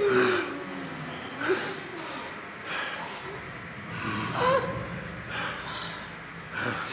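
A person gasping and breathing hard, in short breaths about once a second, some with a brief voiced catch.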